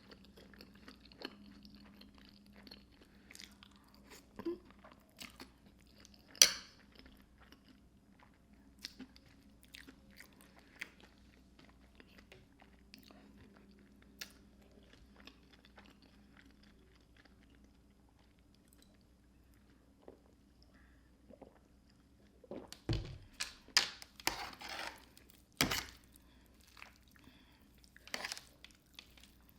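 Close-up chewing of creamy fettuccine alfredo topped with crunchy hot Cheetos crumbs, with scattered soft mouth clicks. There is a sharp click about six seconds in, and a run of louder crunching bites near the end.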